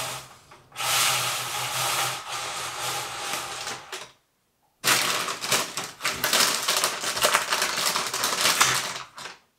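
Window blind being pulled down and closed: a sliding rustle, a short pause, then a longer stretch of rapid clicking and rattling.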